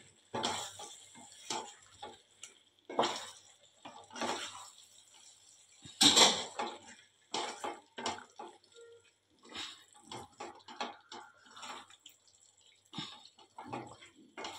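Wooden spatula stirring chicken pieces through wet masala in a stainless-steel kadai, scraping against the pan and squelching in irregular strokes, the loudest about six seconds in.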